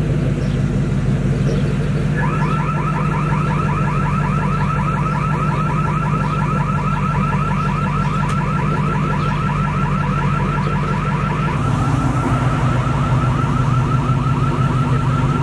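An electronic alarm warbling in fast, evenly repeated rising chirps, starting about two seconds in, over a steady low hum.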